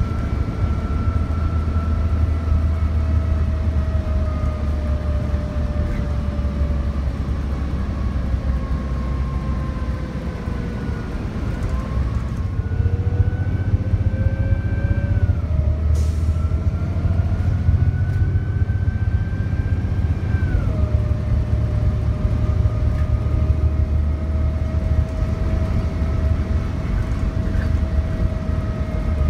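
City transit bus running: a heavy low engine rumble with a whine that falls slowly as the bus slows, then climbs as it pulls away, dropping twice as the automatic transmission shifts up before holding steady at cruising speed. A single sharp click about 16 seconds in.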